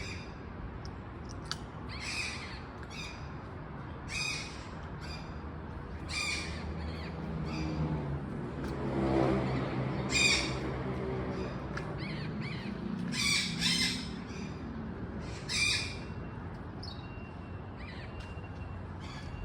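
Yellow-collared macaw squawking: short harsh calls repeated every second or two, loudest about halfway through and again a little later. A low hum swells and fades in the middle.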